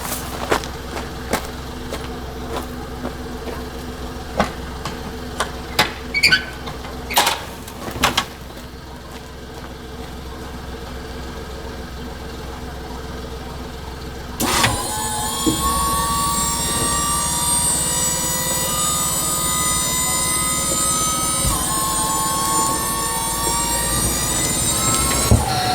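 Engine of small hydraulic earth-moving machinery running steadily, with scattered knocks and clanks. About halfway through it steps up suddenly to a louder, higher whine that slowly rises in pitch, typical of the hydraulics working under load, then cuts off sharply near the end.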